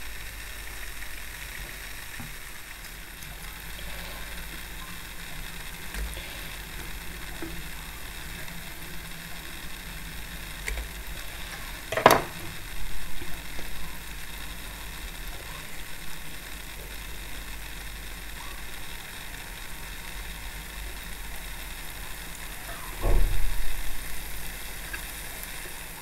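Jilapi batter deep-frying in a pan of hot oil, a steady sizzle. A sharp knock cuts in about halfway, and a short run of louder bumps comes near the end.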